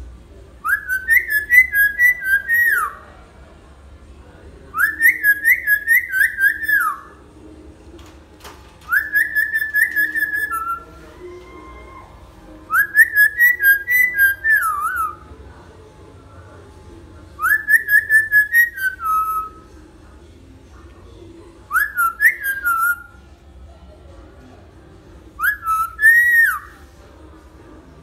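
A lory (nuri) whistling in a series of seven loud phrases, each a quick run of repeated notes that ends on a falling slide, coming about every four seconds.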